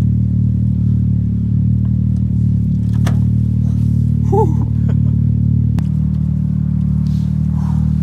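An engine idling steadily, a low, even drone that holds one pitch, with a few light clicks and knocks from handling.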